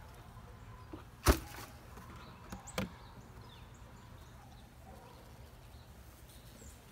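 Beehive covers being handled: one sharp knock about a second in, then a lighter one about a second and a half later, as the metal-topped outer lid is set aside and the wooden inner cover is lifted off the hive body.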